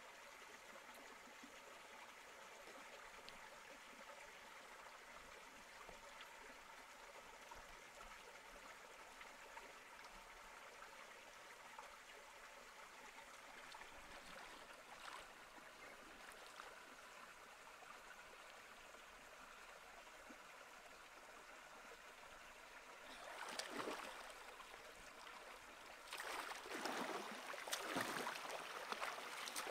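Faint steady flow of river water. Near the end come louder splashes from hands plunging and scooping in shallow water, a short one first and then a longer run of splashing.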